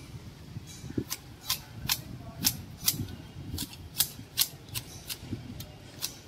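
Long-bladed manual hedge shears snipping through a leafy hedge: a quick, even run of sharp blade clicks, about two to three a second.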